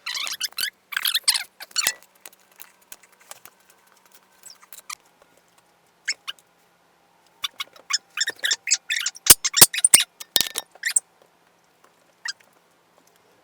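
A dog eating hamburgers: irregular bursts of wet chewing and smacking clicks, a cluster at the start and a louder one about eight to eleven seconds in.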